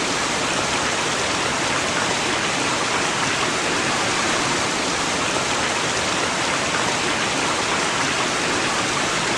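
Computer-generated tinnitus masking sound: a loud, steady hiss of noise, like pink noise or rushing water.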